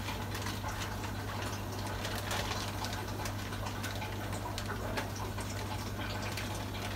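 Plastic shipping bag crinkling and the water in it sloshing as hands reach in to catch a discus. A steady low hum of fish-room equipment runs underneath.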